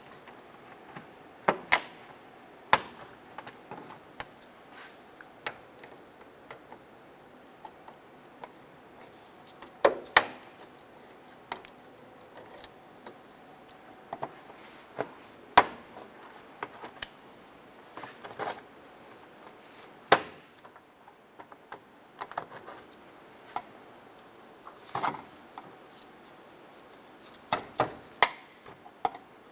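Plastic push-pin retainer buttons being pried out of a Nissan Versa's plastic radiator core support cover with a trim tool: irregular sharp clicks and snaps, a few louder pops several seconds apart, and a quick run of clicks near the end.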